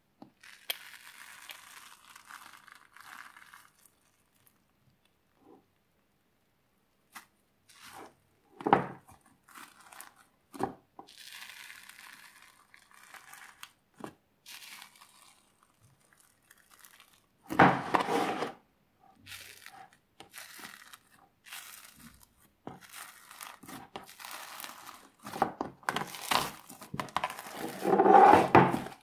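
Hands pressing, stretching and pulling apart bubbly slime full of air bubbles, in irregular bursts of sticky tearing and crackling. There are louder squishes about 9 and 18 seconds in, and the loudest handling comes near the end as the mass is lifted and squeezed.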